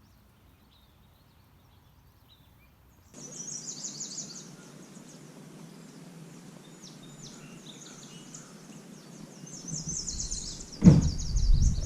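Nearly silent for about three seconds, then birds chirping and trilling high over a steady outdoor hiss. About a second before the end comes a sudden loud, low rumble.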